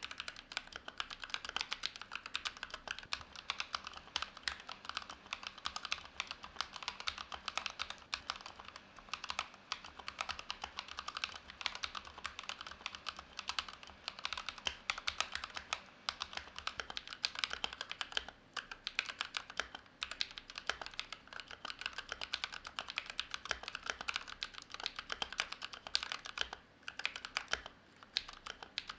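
Steady fast typing on a GMMK Pro mechanical keyboard fitted with a brass plate, Gazzew Boba U4T tactile switches and Akko keycaps: a dense run of key clacks, with a couple of short pauses.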